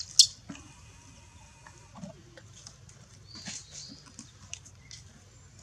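Newborn macaque crying in distress: one loud, shrill squeal just after the start, then a run of shorter high-pitched squeaks in the middle and again near the end, while an adult pulls at its arm.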